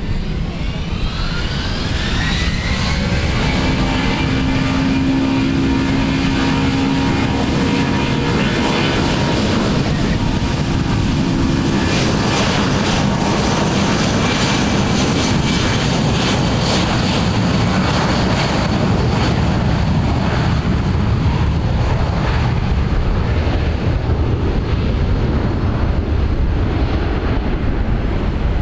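Delta Boeing 757's twin jet engines spooling up to takeoff power, a rising whine over the first couple of seconds, then a steady loud roar with crackle as the airliner accelerates down the runway on its takeoff roll.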